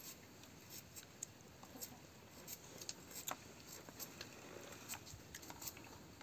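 Faint, irregular clicks and crackles of pomelo segments being peeled and pulled apart by hand.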